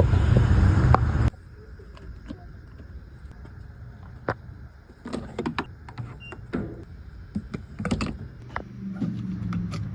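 Inside a car: a low engine drone that drops away abruptly about a second in, then a quiet cabin with scattered light clicks and knocks and a faint low hum coming back near the end.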